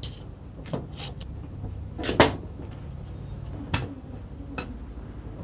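Rusty metal parts of a vintage Black and Decker reciprocating saw clicking and knocking against the metal housing and bench as the plunger mechanism is worked loose by hand. About five separate knocks, the loudest a close double knock about two seconds in.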